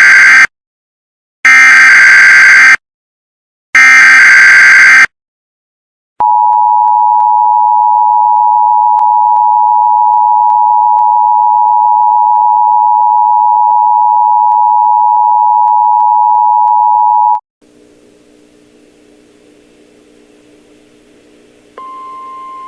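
Emergency Alert System signal: the screeching data bursts of the SAME header (the end of one burst, then two more), then after a short gap the steady two-tone EAS attention signal for about eleven seconds, which cuts off abruptly. A faint low drone of a few steady tones follows, and near the end a single higher steady tone starts.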